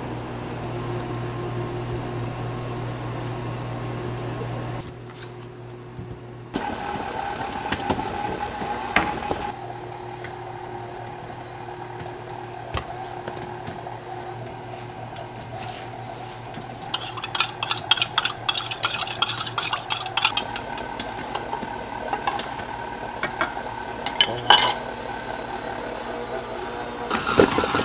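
Baking prep sounds in a series of short takes: dry ingredients poured from a bag into a stainless steel stand-mixer bowl over a steady low hum, then scattered clinks, rattles and handling noises. Near the end a KitchenAid Artisan stand mixer starts running.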